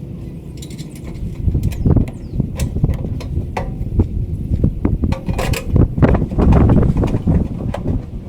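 Irregular clicks, knocks and ratcheting of hand tools against metal while conduit straps and an electrical panel cover are fastened to a pole.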